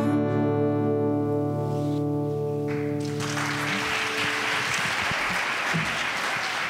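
The last chord of a song on acoustic guitar rings out and fades, then an audience starts applauding about three seconds in.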